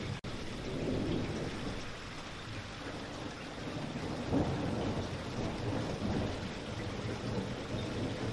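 Steady rain falling, with a low rolling rumble of distant thunder underneath that swells and fades. The sound cuts out for an instant just after the start.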